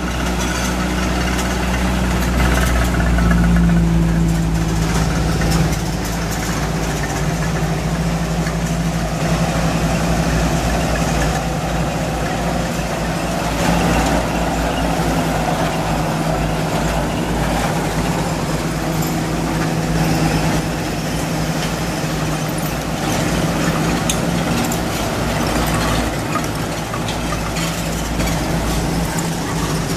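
Engines of WWII US half-tracks running at low speed as the vehicles drive past one after another, a steady low hum.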